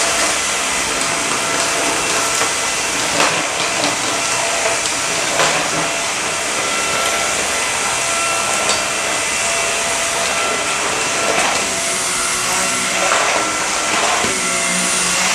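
Samsung Jet VS70 cordless stick vacuum running steadily over carpet with a constant motor whine. A few sharp clicks come through as dirt and grit are sucked up.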